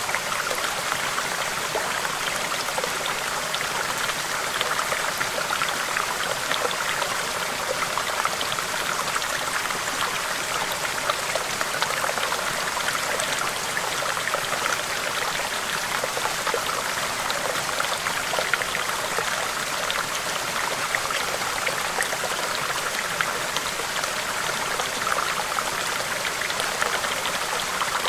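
Small stream babbling over rocks: a steady rush of water with many small splashes and trickles.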